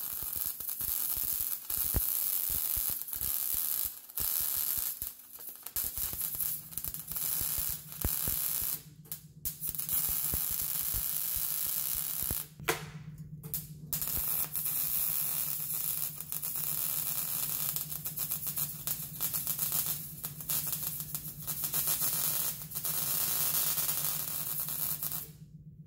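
MIG welder arc crackling and hissing steadily as a new steel section is welded onto a rusty exhaust pipe. The arc breaks off briefly twice, at about 9 and 13 seconds, between runs, and stops near the end.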